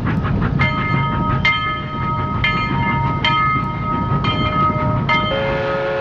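Train rumbling along with a locomotive bell clanging about once a second. A multi-tone steam whistle starts sounding near the end.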